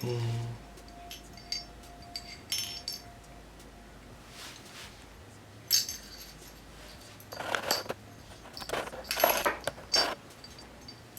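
Small steel parts of a Taurus G2C pistol's slide, such as the firing pin, clicking and clinking as they are handled and dropped into place. There are scattered sharp clicks, with a cluster of louder handling sounds near the end.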